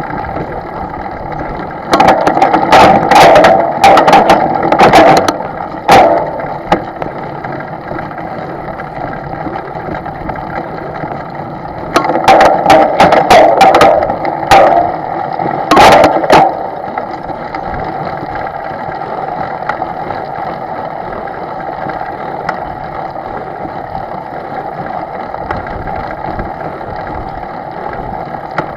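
A boat's engine running steadily. Over it come two spells of loud knocking and rattling, each about four seconds long: one starts about two seconds in, the other about twelve seconds in.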